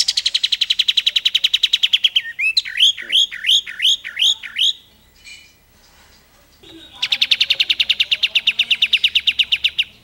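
Caged olive-winged bulbul (kapas tembak) singing: a fast, even rattling trill, the rapid machine-gun 'ngebren' delivery prized by bird keepers, then about six looping whistled notes. After a short pause the rapid trill starts again about seven seconds in.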